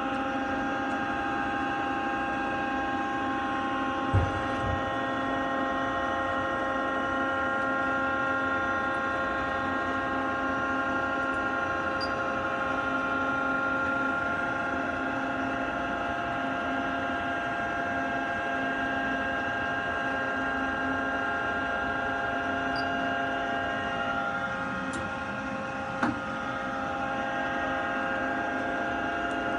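Takisawa TC-20 CNC lathe running under power: a steady machine hum with several whining tones held level. A low thump comes about four seconds in, and a sharp clunk near the end as the tool presetter arm swings into the work area.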